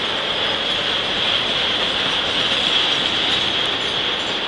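Freight train tank cars rolling past: a steady rumble of steel wheels on the rail with a high-pitched hiss over it, a little louder in the middle.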